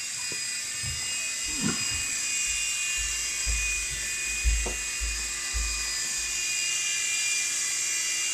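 Blade mCX micro coaxial RC helicopter's small electric motors and rotors running with a steady high-pitched whine. A few low thumps come in the middle.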